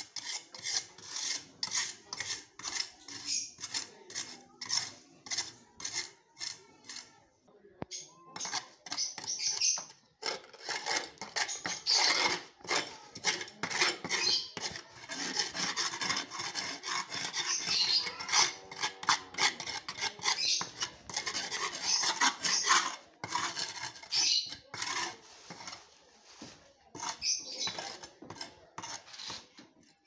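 A small hand scraper scraping dirt and droppings off the floor of a bird enclosure in quick repeated strokes, about two a second, with a short pause about eight seconds in and denser scraping after it.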